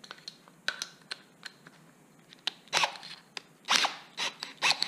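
A few light clicks of handling, then a cordless drill's keyless chuck ratcheting in three short rasps as it is twisted tight by hand on the adapter's shank.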